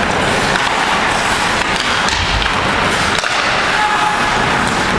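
Ice hockey rink noise during play: a steady scrape and hiss of skates on the ice, with a few faint sharp clacks of sticks and puck.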